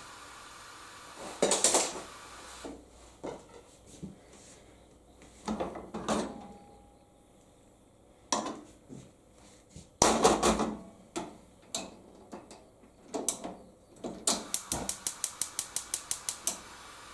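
A frying pan knocking and clattering on the cast-iron grate of a gas stove as it is moved, with a faint hiss that cuts out about three seconds in. Near the end comes a quick run of about a dozen clicks, roughly five a second, typical of a gas stove's igniter, after which the faint hiss returns.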